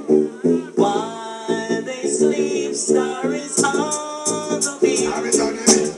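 A song with a sung vocal over a choppy, repeating chord rhythm, played from the DJ's decks through a sound system. Crisp cymbal ticks come in about halfway, and deep bass joins near the end.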